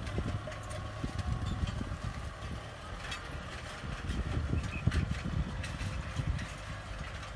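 Kubota M6040SU tractor's four-cylinder diesel engine running steadily under load while pulling a disc harrow through dry soil, with scattered clanks and rattles from the discs and frame.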